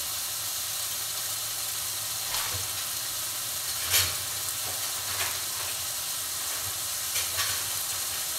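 Chopped tomatoes sizzling as they fry in ghee in a kadai: a steady hiss with a few brief crackles, the sharpest about four seconds in.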